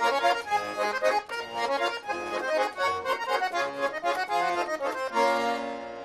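Russian garmon (button accordion) playing the instrumental introduction to a folk song: quick changing notes over chords, then a held chord about five seconds in that fades away.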